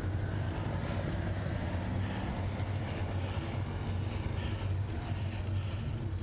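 A steady low hum with wind noise rushing over the microphone.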